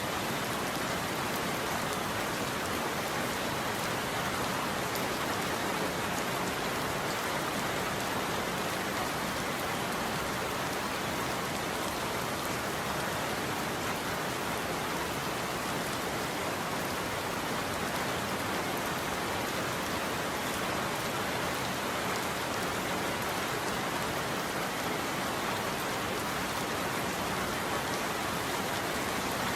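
Steady rain ambience: an even, unbroken hiss of rain falling on a surface, with no changes.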